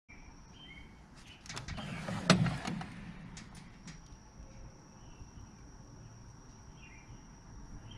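Steel tool chest drawer sliding open on its rails, the hand tools inside rattling, with a loud clunk about two seconds in as it reaches its stop.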